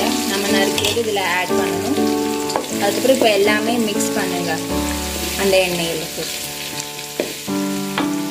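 Sliced onions sizzling as they fry in hot oil in a metal kadai, stirred with a spatula. Background music with sustained notes plays along.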